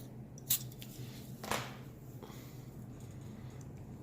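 Small handling clicks from a lighter being refilled with butane: one sharp click about half a second in and a longer, rougher click about a second later.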